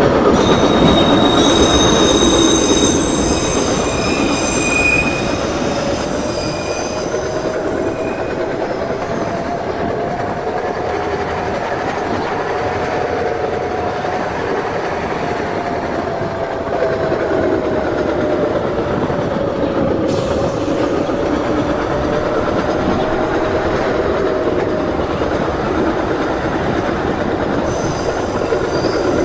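New York City subway train running at speed, heard on board: a steady rumble of wheels on rail under a whine that slowly rises and falls in pitch with speed. High-pitched wheel squeal sounds over the first several seconds and comes back near the end.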